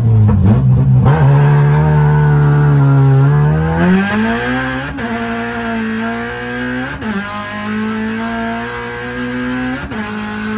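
K24-swapped Honda Civic EK accelerating through the gears, heard from inside the cabin. The K24 inline-four's pitch climbs and drops at each upshift, three times, about five, seven and ten seconds in.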